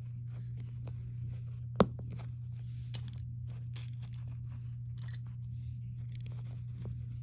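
Plastic Lego pieces being handled and pressed together: scattered small clicks, with one sharp loud snap about two seconds in. A steady low hum runs underneath.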